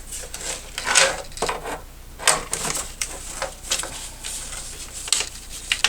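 Irregular clicks, knocks and light rattles of hard plastic and metal monitor-stand parts being handled and fitted together by hand, with brief rustling between them.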